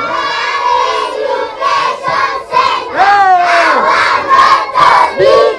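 A roomful of young schoolchildren shouting an answer back in unison, a drawn-out chorus of many voices in a call-and-response. It grows louder about halfway through.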